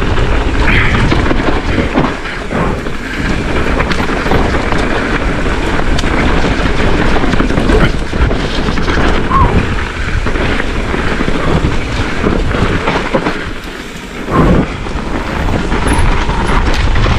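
Mountain bike descending a rough trail at speed: wind rushing over the camera microphone with a continuous rumble and rattle of tyres and bike over the ground, and a few knocks from roots and landings. The noise eases briefly about fourteen seconds in, then picks up again.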